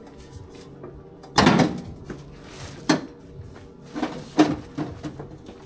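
Heavy thuds and knocks of cement bags and a man's weight shifting on a steel dump truck bed: one loud thump about a second and a half in, then three sharper knocks.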